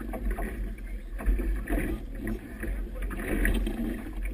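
Wind rumbling on the microphone, with choppy water slapping and splashing irregularly against a boat's hull.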